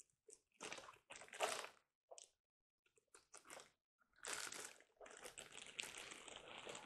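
Clear plastic bag crinkling in irregular bursts as hands handle it.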